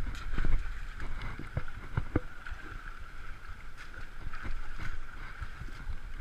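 River water running steadily, with wind rumbling on the microphone and scattered sharp knocks throughout.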